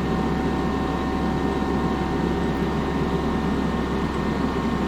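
Tractor engine running steadily while its forks lift a load.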